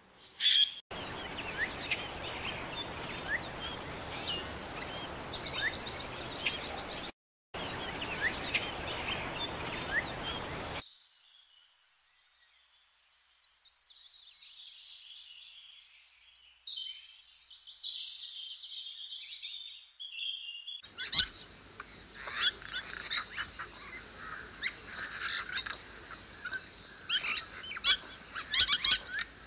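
Birds chirping and calling over a steady outdoor hiss, in several short segments with abrupt cuts between them. The last third has many sharp clicks mixed in with the calls.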